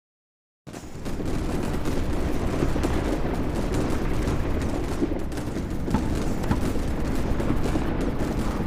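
A brief dead silence, then a loud, continuous rumble full of crackling clicks, standing in for the earthquake.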